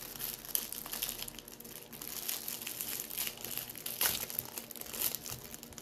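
Continuous crinkling, crackling rustle close to the microphone, with a louder crackle about four seconds in.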